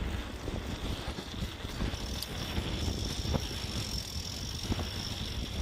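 Mountain bike rolling over a dirt trail, tyres and frame giving small rattles and knocks, with strong wind buffeting the microphone as a steady low rumble. A thin high steady whine comes in about two seconds in.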